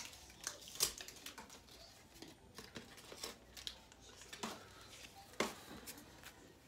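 Faint, scattered rustles and clicks of a 1990 Donruss baseball card pack being opened and its cards handled, with a few sharper clicks along the way.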